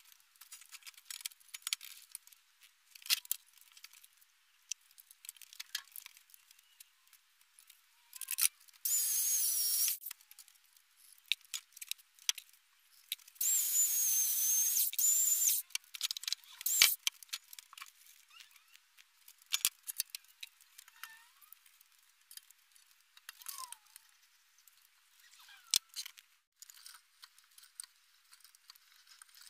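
An electric chainsaw runs in two short bursts, cutting into a log: the first about nine seconds in for a second and a half, the second about four seconds later for about two seconds, each with a high, slightly wavering whine. Around them are scattered knocks, clicks and clatter as the log and tools are handled. The track sounds thin, with the low end cut away.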